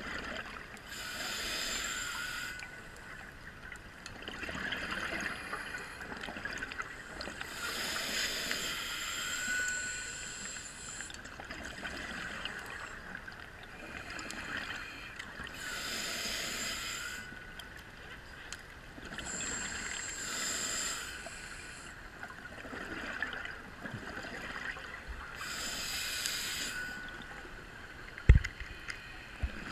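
A scuba diver's breathing through the regulator, heard underwater: slow cycles of hissing inhalation and burbling exhaled bubbles, about one breath every five to seven seconds. A couple of sharp knocks near the end.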